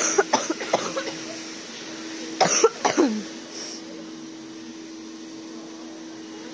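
Coughing in two bouts: a burst of short coughs at the start and another about two and a half seconds in, the second trailing off in a falling note. A steady low hum runs underneath.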